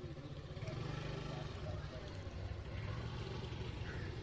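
A motor vehicle engine running nearby with a steady low hum.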